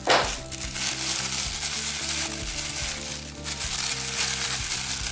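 Thin clear plastic bag crinkling and rustling as it is pulled open and off a small figure, loudest just at the start, over soft background music.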